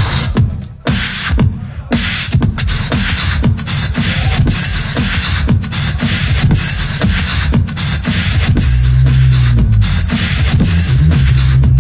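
Beatboxing into a microphone: a fast run of vocal kicks, snares and hissing hi-hat sounds, with a deep held bass line joining about three quarters of the way through.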